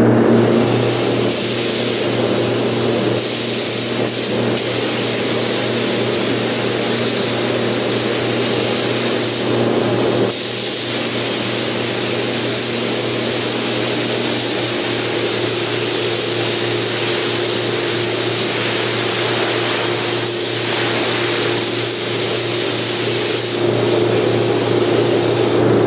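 Gravity-feed compressed-air paint spray gun hissing steadily as it sprays a coat of clear onto plastic rocker panel covers, with the trigger let off briefly about ten seconds in. A steady low hum runs underneath.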